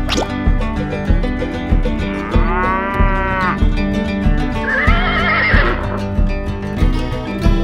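Background music with a steady beat, overlaid with a cow mooing about two and a half seconds in, then a second, wavering animal call around five seconds in.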